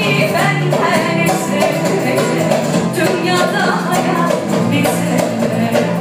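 Live band music: a guitar played with a drum kit, with a voice singing along.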